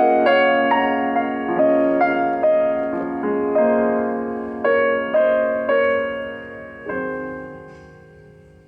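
Piano playing a slow bridal processional in struck chords. The last chord, about seven seconds in, is left to ring and fade away.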